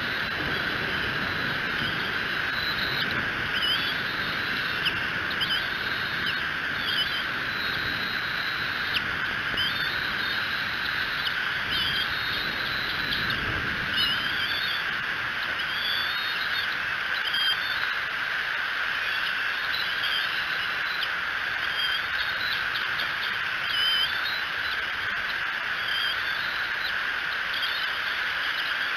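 Birds calling outdoors in a run of short, high chirping calls every second or two, over a steady hiss.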